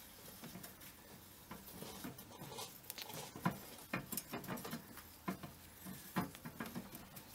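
Steel cottered crank arm being worked loose by hand and slid off the bottom bracket axle: faint, irregular metal clicks and light knocks, a few sharper ones about halfway through.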